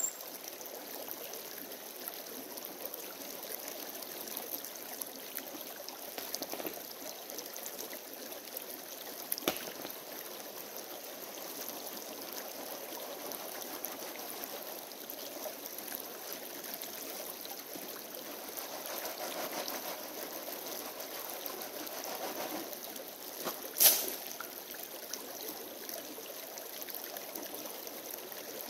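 Shallow rocky creek running steadily over stones. There is a faint click about ten seconds in and a sharp knock a few seconds before the end.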